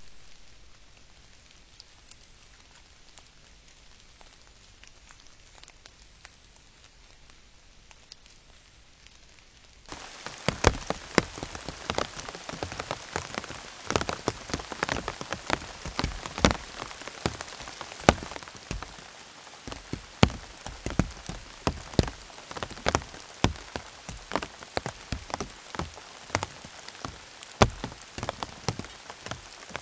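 A faint steady hiss for about the first ten seconds, then heavy rain: a dense patter with large drops splatting loudly and irregularly close by.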